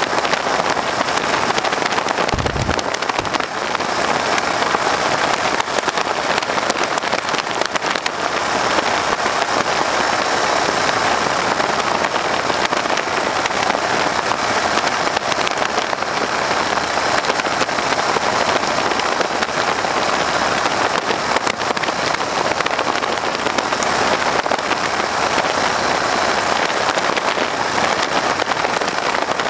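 Steady rush of wind and radial-engine noise in the open cockpit of a PT-13 Stearman biplane in flight, the airstream buffeting the microphone.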